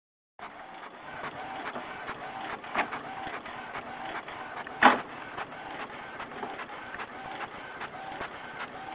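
Fax machine's printing mechanism running with a steady, rhythmic whir that repeats about twice a second. Two sharp knocks break in, the louder one about five seconds in.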